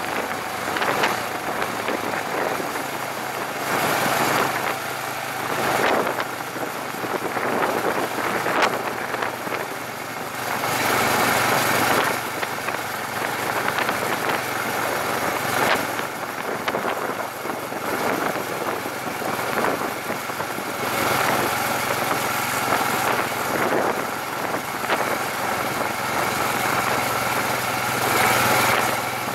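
Motorcycle engine running steadily while riding on the road, with wind rushing over the bike-mounted microphone in swells every few seconds.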